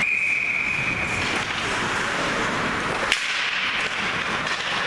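A referee's whistle blows one steady note for about a second, over the constant hiss of skating and rink noise. About three seconds in there is a single sharp crack, the loudest moment, as the play moves up the ice.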